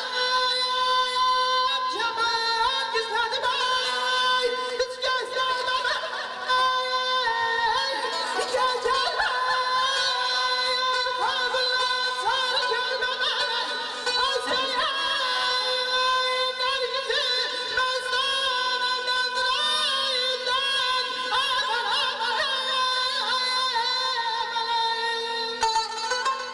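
A male singer performing an Azerbaijani mugham-style song through a microphone and loudspeakers, his voice wavering in ornate, trilling runs over a steady string accompaniment.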